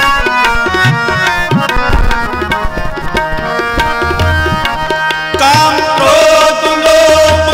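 Harmoniums and tabla playing devotional kirtan music: the harmoniums' reeds hold chords under quick tabla strokes. A voice comes in on a long held note about five seconds in.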